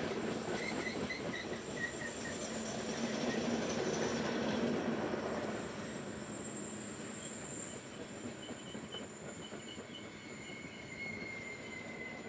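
Loaded freight cars rolling past in a long train: a steady rumble and rattle of steel wheels on rail, with a thin high-pitched wheel squeal over it. The rumble eases about halfway through.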